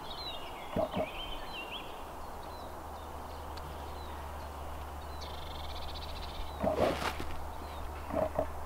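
Small birds chirping and singing over a steady low wind rumble on the microphone. A few short low knocks come and go, and one sharp crack sounds about seven seconds in.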